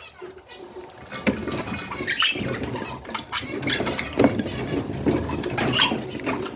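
Budgies making short, irregular squeaky chirps, mixed with scattered sharp clicks.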